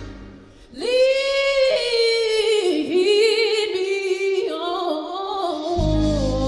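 A woman singing a slow gospel hymn solo, holding long notes with a wavering vibrato and sliding into melodic runs. Near the end a low steady tone comes in under her voice.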